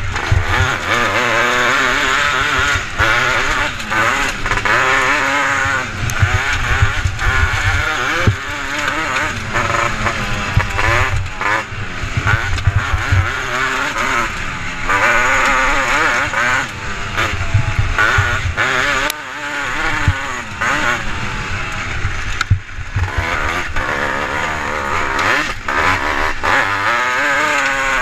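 Off-road buggy's engine racing at full load over a rough dirt track, revving up and dropping again and again as the driver works the throttle through the bends, with knocks and rattles from the jolting frame.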